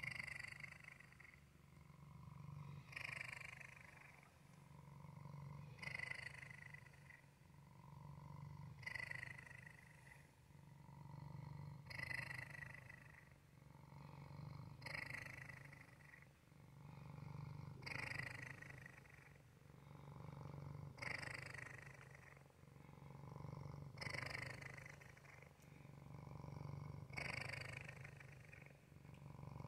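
Domestic cat purring steadily, the purr swelling and easing with each slow breath, about one breath every three seconds.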